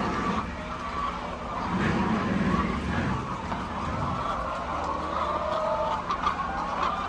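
Hens calling with drawn-out, gliding calls over a steady low hum.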